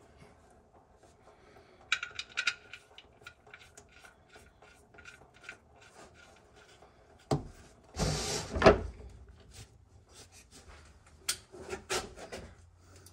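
Hand tools being handled: a run of light clicks, a louder clatter about eight seconds in, and a few more clicks near the end.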